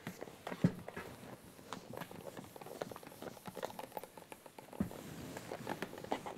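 Faint scattered taps and rubbing of a whiteboard marker and eraser on a whiteboard as it is wiped and written on, with a louder knock about half a second in and another near the end.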